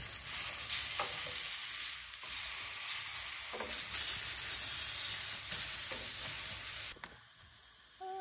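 Sliced zucchini sizzling in a frying pan on a propane camp stove, with a few light clicks as a utensil turns the pieces. The sizzling cuts off suddenly about seven seconds in.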